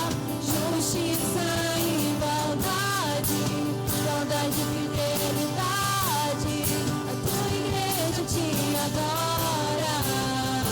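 Worship band performing a praise song: a sung melody sliding between notes over sustained chords, with a regular drum beat.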